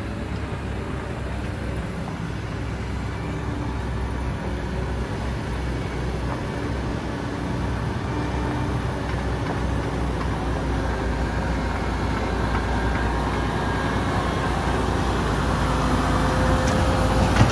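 Mercedes-Benz Arocs 6x6 truck's diesel engine running under load as it hauls a low-loader with a tracked bulldozer, a steady low rumble growing gradually louder as it approaches.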